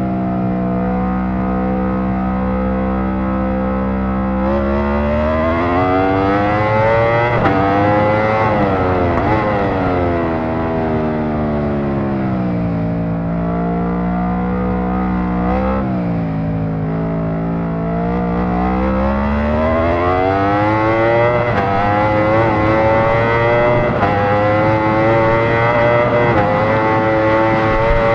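Aprilia RSV4's V4 engine running, its pitch climbing and falling several times with steady stretches between. It climbs about two-thirds of the way through and holds a higher, steady pitch near the end.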